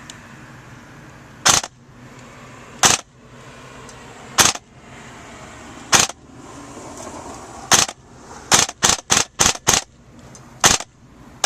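Custom VFC M4 airsoft electric gun (AEG) firing short three-round bursts, each a brief sharp crack of motor, gearbox and piston. The bursts come about every second and a half at first, then five follow in quick succession about two-thirds of the way through.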